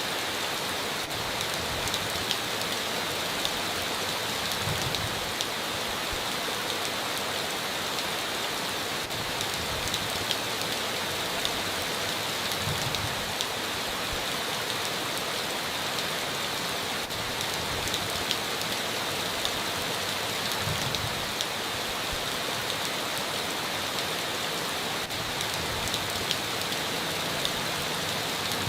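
Steady rain falling, with scattered sharp drop ticks over an even hiss.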